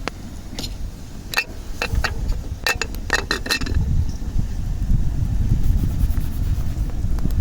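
Wind buffeting the microphone with a loud, uneven low rumble. A quick run of sharp clicks and knocks comes between about one and four seconds in.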